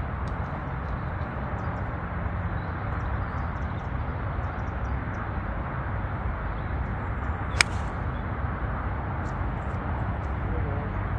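A golf ball struck with a driving iron: one sharp click of clubface on ball about two-thirds of the way through, over steady wind noise.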